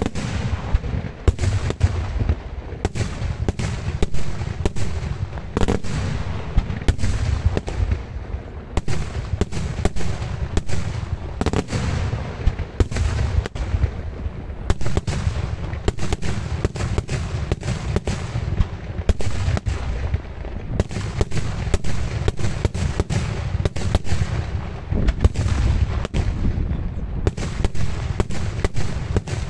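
Daylight fireworks display: aerial shells bursting in a continuous barrage of loud bangs and booms, several reports a second.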